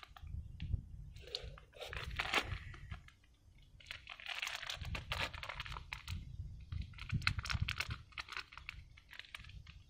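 Plastic shrink-wrap crinkling and crackling as the wrapped board-game pieces are handled, in irregular bursts, with a short lull about three seconds in.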